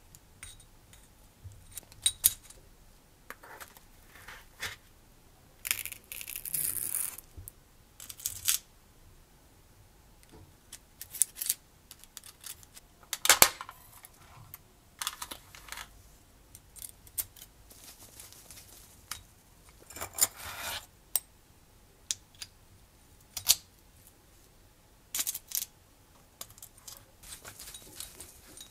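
Irregular small metallic clicks, clinks and short scrapes of hand assembly on a metal radial engine model kit. Steel rods and pins are fitted into an aluminium crankcase, a screwdriver bit is taken from a plastic bit case, and a small screwdriver turns a screw.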